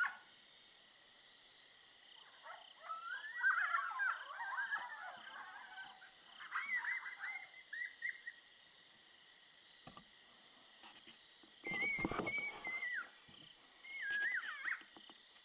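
Coyotes yipping and howling in several bouts of wavering, gliding high calls: first a tangled group chorus, then shorter calls, then a long held howl about twelve seconds in.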